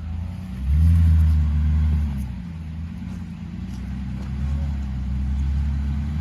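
Off-road vehicle engine running at low revs. It is given throttle about a second in and louder for a second or so, then settles back to a steady low drone.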